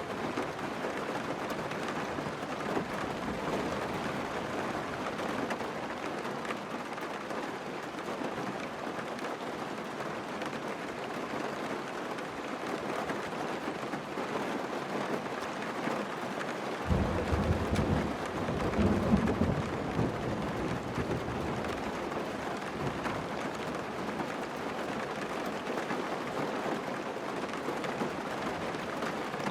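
Steady hiss of heavy rain, with a low rumble of thunder that sets in suddenly a little past halfway and rolls for about five seconds.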